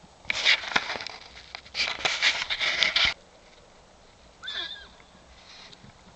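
Horses in a herd squaring off: two loud rushing bursts of noise in the first three seconds, then a short falling squeal from a horse about four and a half seconds in.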